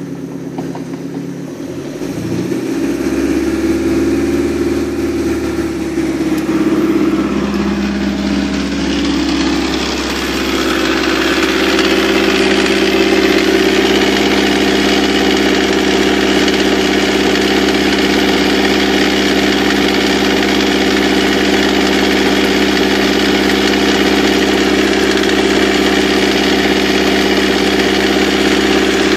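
OMC 3.0-litre four-cylinder sterndrive engine running out of the water; its speed picks up about two seconds in, wavers for several seconds, then holds steady at a faster idle.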